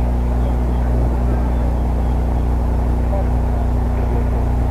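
A steady, loud low hum, with faint distant voices over it.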